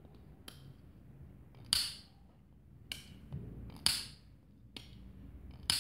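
Ganzo F758 automatic folding knife: its spring fires the blade open three times, each time with a sharp metallic snap about two seconds apart. A quieter click comes between snaps as the blade is folded shut and caught by the button lock.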